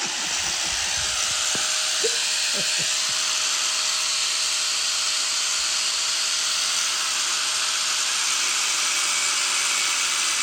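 A small power tool running steadily, a continuous hiss with a faint steady whine, with a few light knocks in the first few seconds.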